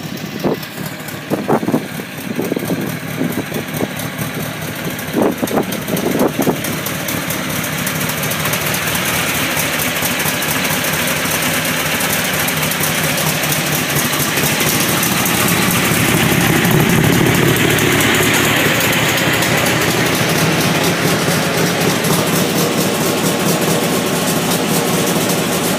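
Turbocharged air-cooled Volkswagen flat-four in a Karmann Ghia running through a Dynomax muffler on a new turbo-to-muffler pipe. It idles steadily, with a few short loud bursts in the first few seconds and a louder stretch a little past the middle.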